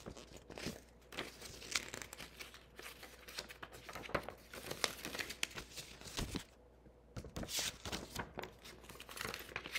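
Paper craft pieces being handled and sorted on a tabletop: rustling and crinkling with small taps and clicks, pausing briefly a little past the middle.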